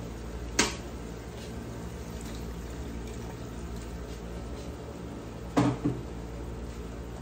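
Water poured from a stainless-steel kettle into a hot frying pan of prawns and vegetables, over a steady low hum. A sharp click comes about half a second in, and a couple of knocks near the end.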